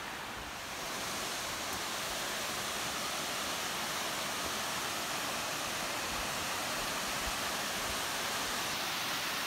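Waterfall and mountain stream rushing: a steady rush of water that grows a little louder about a second in.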